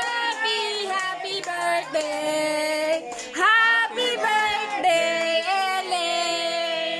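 Women and children singing a birthday song together, holding long notes.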